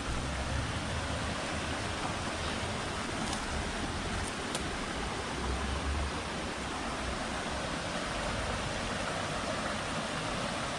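A rocky river rushing over small rapids and cascades: a steady hiss of running water.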